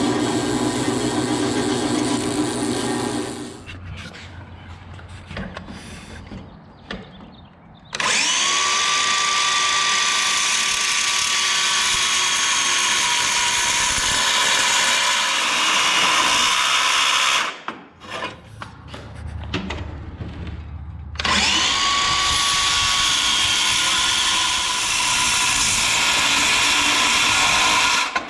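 Miter saw cutting heavy aluminum stock: a short run of the saw at the start, then two long cuts of roughly nine and seven seconds, each loud and harsh with a high steady whine that sags slightly as the blade bites into the metal.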